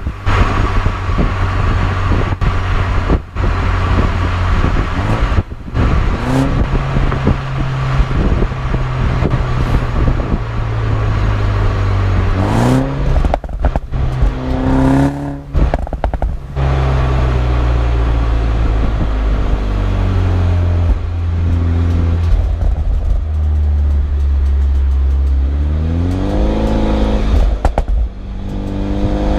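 BMW 125i's B48 turbocharged four-cylinder engine under way through an M140i cat-back exhaust. The revs climb several times, with brief sharp breaks between pulls, and a steady low drone in the middle.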